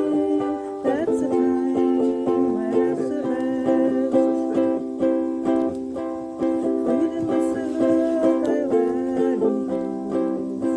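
Live acoustic music: sustained chords with a steady rhythm and a few bent notes.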